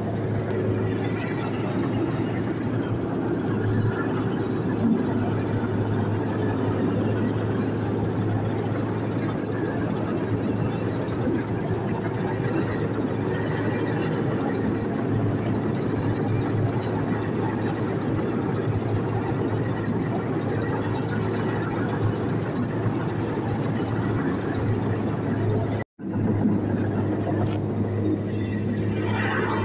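Tracked rice combine harvester running steadily at work, heard from on board: an even engine and machinery drone with a constant low hum. It breaks off for an instant near the end.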